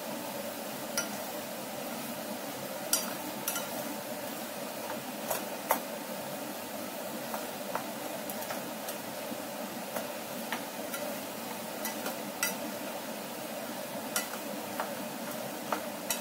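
Wooden spatula stirring tomato chunks in a ceramic-coated saucepan, with irregular taps and scrapes against the pot, over a steady hiss.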